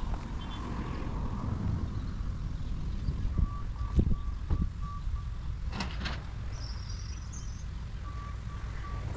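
Distant beeping at one steady pitch, evenly pulsed about three times a second, in two runs a few seconds apart, over a steady low rumble, with a few short knocks in between.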